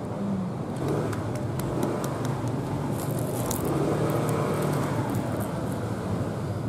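Crackling snaps as the crisp fin of a deep-fried whole parrotfish is broken off by hand, the crunch of its fried-crisp skin and bones. It is heard over a steady low hum.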